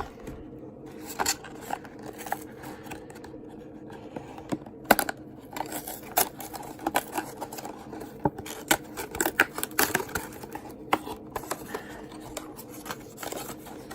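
A small cardboard box of trading cards being opened by hand: irregular scratching, scraping and sharp clicks of the cardboard being torn and pried open, with the cards inside handled.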